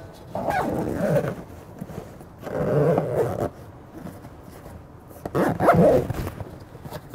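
Zipper on a Kelty Camp Galley Deluxe polyester organizer bag being pulled shut around the lid in three pulls of about a second each.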